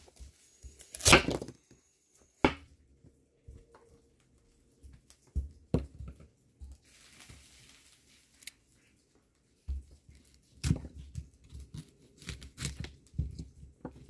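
Kitchen knife cutting and breaking a fresh cauliflower on a wooden cutting board: a loud cut through leaves and stalk about a second in, then scattered single knocks of the blade on the board, and a quick run of cuts near the end.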